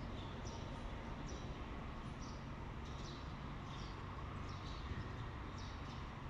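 A steady low hum of milking-parlor machinery, with short, faint, high chirps repeating about once a second.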